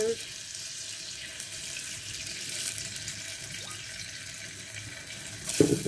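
Butter and olive oil sizzling as they heat in a stainless steel saucepan, a steady hiss, with a brief louder noise near the end.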